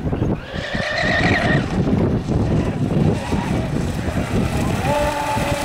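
Radio-controlled racing speedboat running fast on open water, its motor a high whine that comes in about half a second in, fades after a second, and returns near the end. A dense low rushing noise runs underneath.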